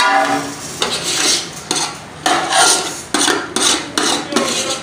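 Steel spoon scraping cooked rice out of a large metal cooking pot in repeated scoops, about two a second, metal grating on metal.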